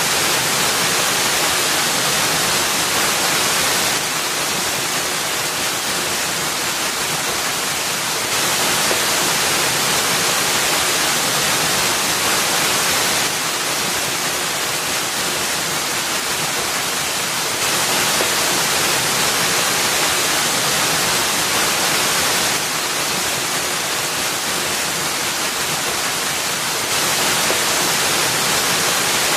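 Small waterfall splashing steadily into a shallow pool: a constant, even rush of falling water, its level shifting slightly every four or five seconds.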